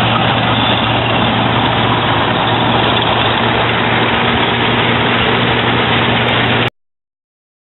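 Claas Dominator 80 combine harvester running steadily: a dense machine noise with a constant low hum. It cuts off suddenly about six and a half seconds in.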